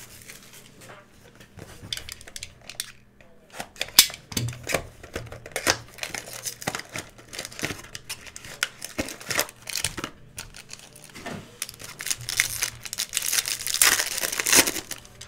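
Foil trading-card pack wrapper crinkling in the hands, with scattered clicks and taps of card and cardboard. Near the end comes a longer, denser crinkling as the foil is torn open.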